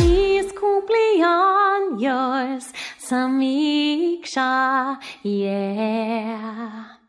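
A woman's voice singing alone with no accompaniment, a slow melody of held notes in short phrases. It cuts off abruptly just before the end.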